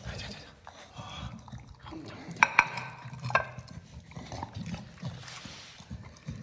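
Staffordshire Bull Terrier eating chunks of wet meat from a ceramic plate, with wet chewing and smacking throughout. The plate clinks sharply twice, with a brief ring, a little before the middle.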